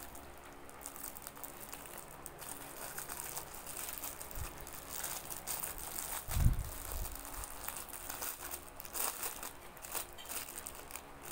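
Clear plastic wrapping crinkling and crackling as it is handled and peeled off a small wallet. A single dull thump comes about two thirds of the way through.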